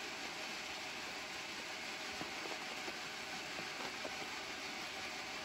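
A steady, even hiss of background noise, with a few faint light clicks around the middle.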